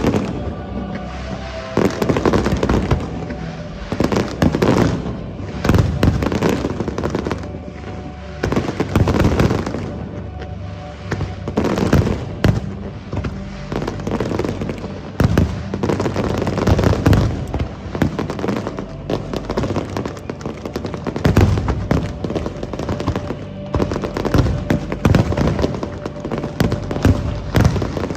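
Aerial fireworks bursting over and over, a loud bang every second or two, with music playing underneath.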